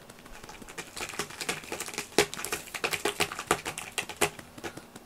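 Irregular light tapping and rustling from hands patting and stroking two cats' fur, with a few sharper taps.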